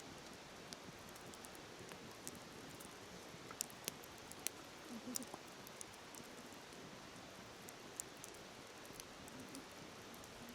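Wood bonfire crackling with scattered sharp pops, over the steady rushing hiss of a flowing river.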